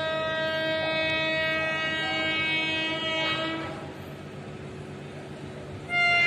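Indian Railways locomotive horn sounding one long blast that dies away about three and a half seconds in, then a second, louder blast starting just before the end.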